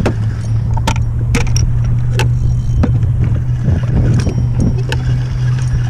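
Jet ski engine idling with a steady low hum while the craft drifts, with a few scattered sharp clicks over it.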